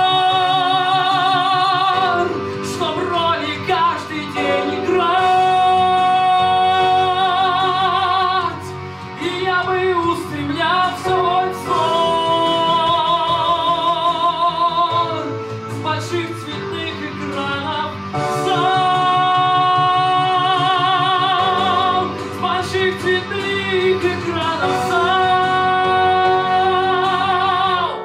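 A male singer holding long, high sung notes with wide vibrato through a microphone, in several phrases with short breaks between, over instrumental accompaniment.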